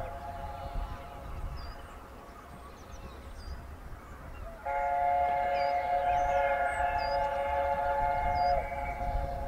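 LNER A4 steam locomotive's chime whistle sounding a chord of several notes: a held note fading away at the start, then a long loud blast from about five seconds in that lasts about four seconds. A low rumble of the train runs underneath, and birds chirp now and then.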